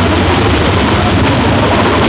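Engine of a construction lift-and-mixer machine running steadily at a fast, even beat.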